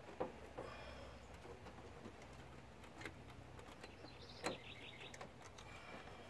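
A few faint clicks and taps of a freshly crimped wire and connector being handled, the sharpest click about four and a half seconds in, over a low steady hum. Birds call faintly in the background.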